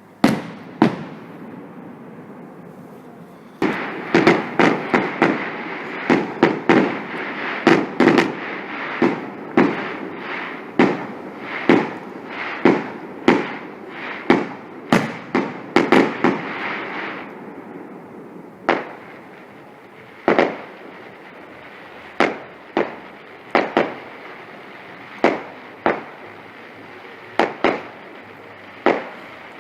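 Fireworks exploding in a long run of sharp bangs. From about four seconds in they come quickly, one or two a second, over a continuous hissing crackle. After about seventeen seconds the crackle drops away and the bangs come every second or two.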